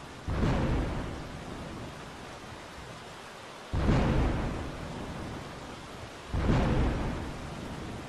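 Thunderstorm with steady rain and three sudden thunderclaps, about a third of a second in, near four seconds and after six seconds; each rumbles and fades over a second or two.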